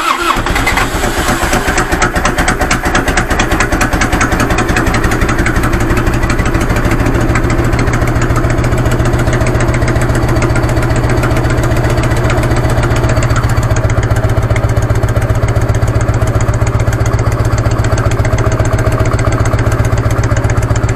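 Harley-Davidson Evolution 1340 air-cooled V-twin running steadily just after a cold start. The owner finds the rear cylinder's exhaust valve ticking much reduced after the pushrod readjustment, though a slight tick remains.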